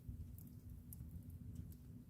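Wood fire burning in a fireplace: a low, steady rumble of the flames with a few soft, sharp crackles of the burning wood.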